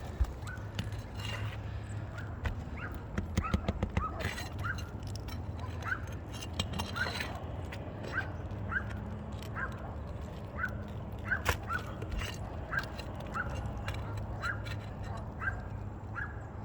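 Clicking and scraping of a pry bar working roofing nails out of brittle asphalt shingles. Over it a bird chirps over and over, short rising chirps about three every two seconds.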